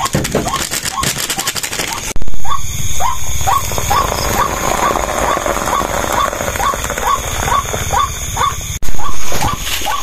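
Water poured into a plastic cup of coffee powder, a steady rush that starts abruptly about two seconds in and stops near the end. Under it, a short rising chirp repeats about three times a second throughout.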